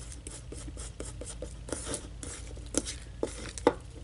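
Sticky homemade shaving-cream slime being kneaded and pulled from a bowl by hand: a run of small wet clicks and squelches, with two louder snaps near the end, over a steady low hum.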